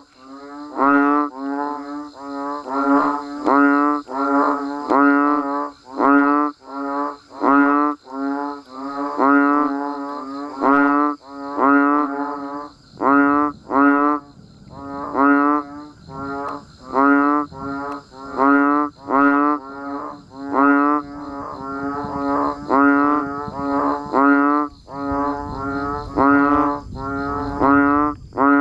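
A chorus of banded bullfrogs (Asian painted frogs) calling: short, deep, bleating calls repeated a little more than once a second, overlapping one another, with a steady high hiss behind them.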